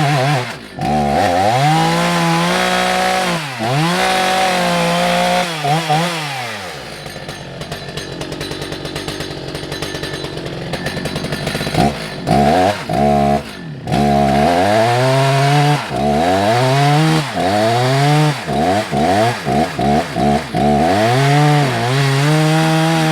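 Husqvarna 181SE two-stroke chainsaw engine running at high revs with repeated sharp dips in pitch for about six seconds, then dropping to idle. About twelve seconds in it is revved up again and blipped up and down many times in quick succession.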